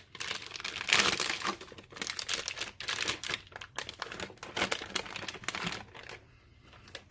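Plastic packaging crinkling and crackling as a hard drive is pulled from its box and wrapping, in irregular handfuls that die down about six seconds in.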